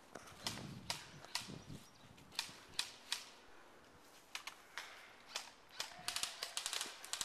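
Airsoft guns firing: sharp single shots about every half second, then a quick string of shots near the end.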